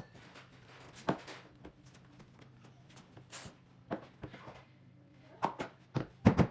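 Scattered knocks and bumps from handling and fitting sectional couch pieces during assembly, with a cluster of louder knocks near the end. A faint steady low hum runs underneath.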